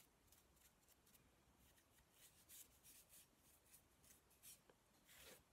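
Faint, soft swishes of a small paintbrush's bristles sweeping metal filings off a model locomotive's body chassis, in short strokes about three a second that start about two seconds in and grow louder near the end.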